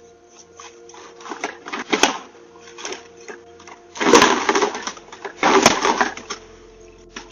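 Clattering and rattling from an intruder breaking into a house, in three main bursts with scattered clicks between them, over a faint steady hum.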